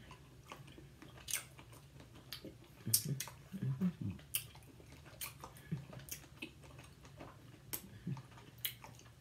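Close-up chewing of a chewy taffy candy (cherry Now and Later): scattered wet mouth clicks and lip smacks, with a couple of short low hums near the middle.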